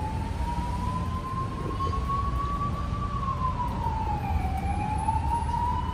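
A siren wailing: a single tone that slowly rises, falls back about four seconds in, and rises again, over a low rumble.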